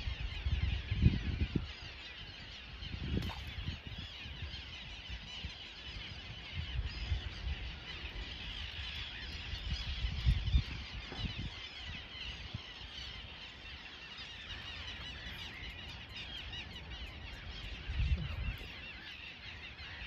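Birds calling continuously in a dense chorus, with low rumbles of wind buffeting the microphone a few times.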